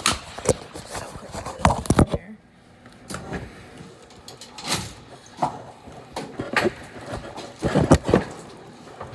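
Clanks and knocks from an old manually operated elevator's door being handled, a string of separate sharp bangs with the loudest near the end.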